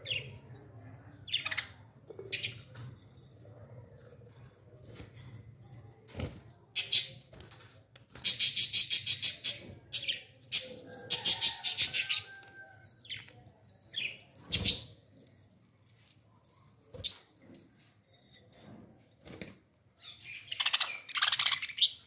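Pet budgerigars chirping: scattered sharp chirps, two long runs of very rapid repeated high notes around the middle, and a burst of chatter near the end.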